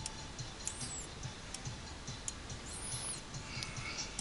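Computer mouse clicking, faint and irregular, as the presenter drags and clicks in the software, with two brief high squeaks in between.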